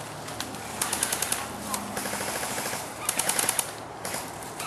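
Airsoft guns firing two short full-auto bursts of rapid clicking shots, about a second in and again about three seconds in.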